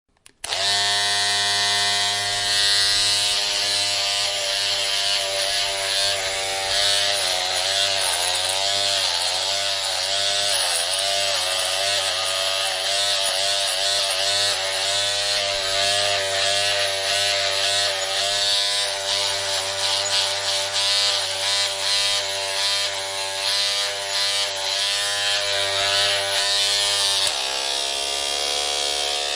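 Electric shaver buzzing. It starts within the first half second, and from about seven seconds in its pitch wavers up and down. Near the end the buzz drops to a lower pitch and slowly climbs again, a change of shaving mode.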